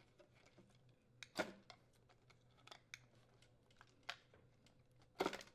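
Faint, scattered clicks and rattles of plastic wire connectors being unplugged from a refrigerator dispenser control board, with the loudest cluster of clicks near the end.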